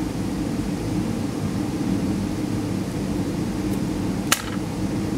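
Steady hum of kitchen ventilation, with a single sharp click that rings briefly about four seconds in.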